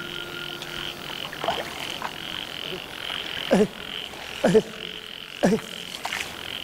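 Short croaking calls, each dropping steeply in pitch. They start faint, then come as three loud calls about a second apart in the second half, over a steady high-pitched drone like night insects. Music fades out at the very start.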